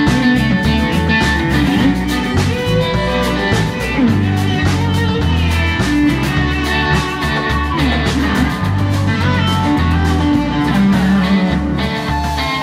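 Electric guitar and electric bass playing live together, an instrumental stretch of a rock song.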